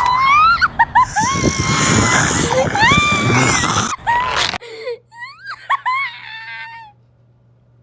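A very high-pitched voice crying out in wails that slide up and down. It is loud and rough for the first four and a half seconds, then turns to thinner, fainter squeaks that die away about a second before the end.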